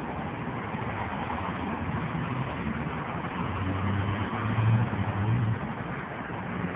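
Road traffic: a steady hiss with a low engine hum that swells about halfway through and fades again.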